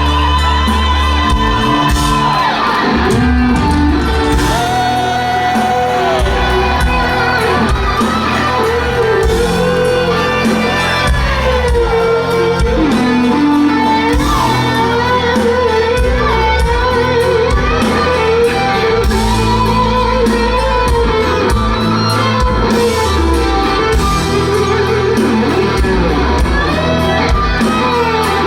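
Live rock band playing loudly: an operatic singing voice with vibrato over electric guitar, bass and drums.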